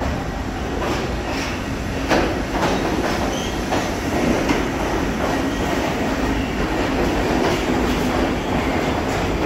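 New York City Subway R62A train pulling into the station and rolling along the platform: a steady rumble with wheels clacking over rail joints, the loudest clack about two seconds in, and a few faint wheel squeals.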